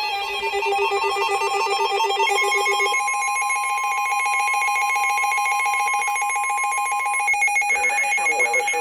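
Emergency alert attention tones: electronic tones warbling back and forth for about three seconds, then a steady high beep that cuts off about seven seconds in.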